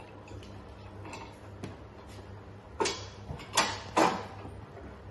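Handling knocks of a touchscreen monitor being fitted onto its mounting pad on a stand: a few light ticks, then three loud, sharp knocks in the second half.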